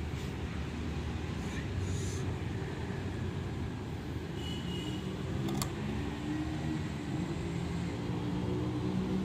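Steady low rumble of background engine noise, with one sharp click a little past halfway.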